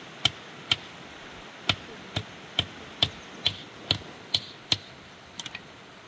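Repeated sharp knocks of a hand tool striking a hard surface, about two a second with a short pause after the second knock, then three quick lighter taps near the end.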